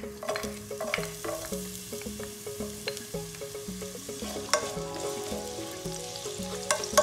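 Chopped garlic sizzling in hot oil in a nonstick pot while a spatula stirs it, with two sharp knocks, one about four and a half seconds in and a louder one near the end. Soft background music plays along.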